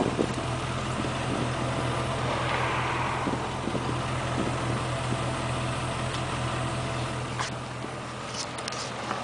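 1997 Land Rover Discovery engine idling steadily through its newly installed muffler, a low, even exhaust note.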